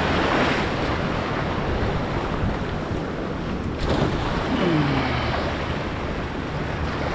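Surf washing and churning against jetty rocks, with wind on the microphone. About four seconds in, a thrown cast net lands on the water with a brief splash.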